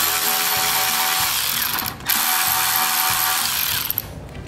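Cordless electric ratchet running in two runs of about two seconds each, with a short break between, driving in the screws that hold the air cleaner base plate of a Kohler Magnum 20 engine.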